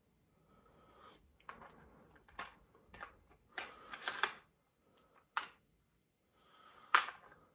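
Metal drill bits clicking and rattling in a plastic Harbor Freight Warrior drill bit case as they are picked through and pulled out by hand, in a scatter of short clicks with one sharp click near the end the loudest.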